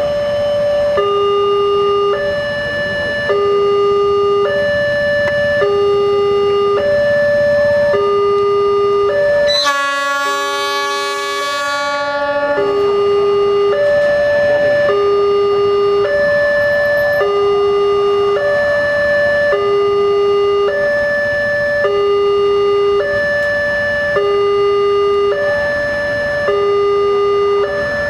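Level-crossing warning signal sounding its two-tone alarm, an even alternation of a low and a higher tone, each held about three-quarters of a second, as a train approaches. About ten seconds in, a locomotive horn blasts over it for about two and a half seconds.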